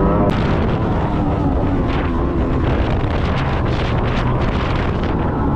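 Thundercat inflatable race boat under way: heavy wind buffeting on the microphone and rushing water spray over the outboard motor, whose pitch shows only faintly about two seconds in.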